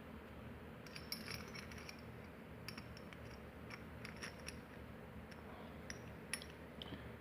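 Small metal padlock parts clicking and clinking against each other as they are handled and fitted back into the lock body, a scattering of light sharp clinks with a short metallic ring.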